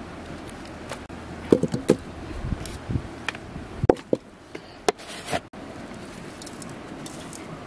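Raw pig intestines and daikon being handled by hand in a metal cooking pot: scattered soft knocks and wet squelches over a steady background hiss, the sharpest a few seconds in.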